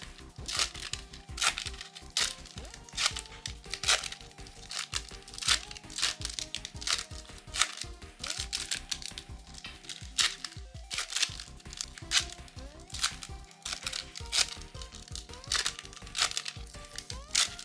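Foil Pokémon booster-pack wrappers crinkling and tearing in close-up, in a rapid, irregular run of crackles, over background music with a steady beat.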